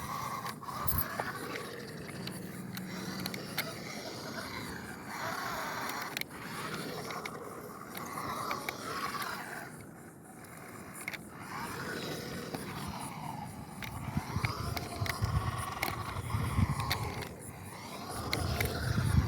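The small electric motor and gears of a toy-grade RC car whining, rising and falling in pitch with the throttle, with scattered clicks as it crawls over rough ground.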